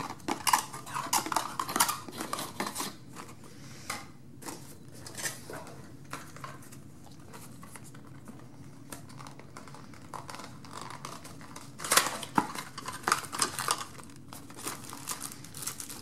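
Cardboard packaging and plastic wrapping handled by hand: irregular rustling, scraping and light taps of card and plastic. Two busy spells, one at the start and one about twelve seconds in, with a quieter stretch between them.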